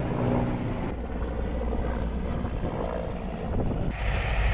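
Helicopter flying, its engine and rotor running steadily. The sound changes abruptly twice, at edit cuts, and ends in a steadier, brighter mechanical running.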